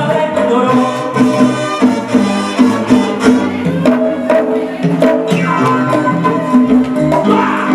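Salsa music played over the sound system, with pitched instruments over a steady, even percussion beat.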